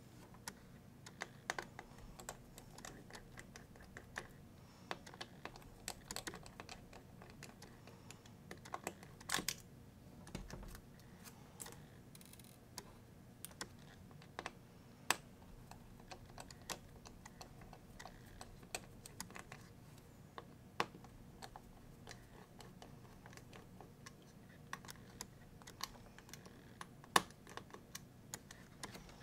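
Irregular small clicks and taps of small tools and parts being handled on an opened MacBook Pro during disassembly, with a few sharper clicks standing out, the loudest near the end.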